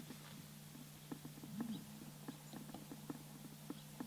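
Light, scattered crunches and rustles of footsteps through dry grass and brush, a few a second, over a faint steady low hum.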